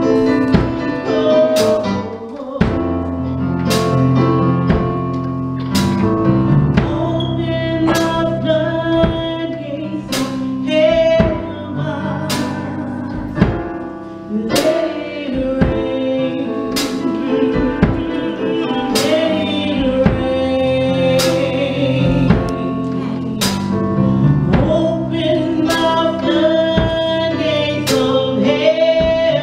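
Gospel song performed live by a praise and worship team: voices singing over keyboard, bass and drums keeping a steady beat.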